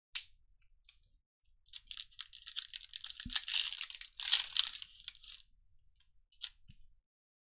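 Foil wrapper of a Panini Mosaic football card pack crinkling and tearing as it is ripped open by hand. The sound starts about two seconds in and lasts some three and a half seconds, with a single light tap just before it and another near the end.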